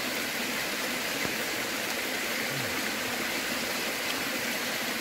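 Heavy rain falling steadily, an even hiss of rain pouring down.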